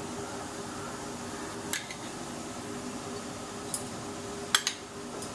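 Light clinks of a small glass bowl and a spoon being handled at the stove: four short knocks, the loudest pair about four and a half seconds in, over a steady low hum.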